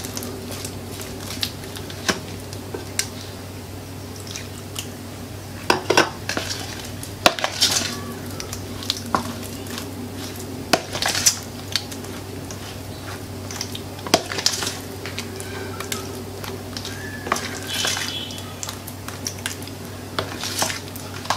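A metal fork beating thick wheat-flour batter in a plastic bowl, with irregular clicks and scrapes as it knocks and drags against the bowl, over a steady low hum.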